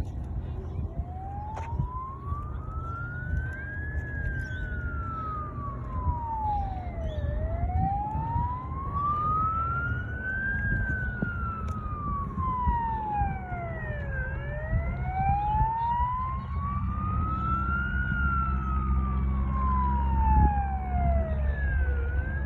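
Police-style wail siren sounding from an aeroplane flying overhead, its pitch sweeping slowly up and down, three long rises and falls, with a steady low drone underneath.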